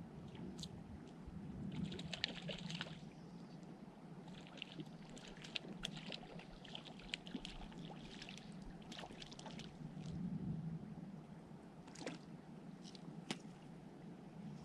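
Light splashing and trickling of water in short bursts, with a few sharp clicks near the end.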